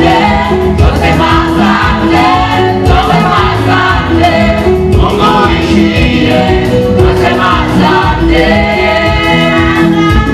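Gospel music: a group of voices singing over a steady drum beat and a moving bass line.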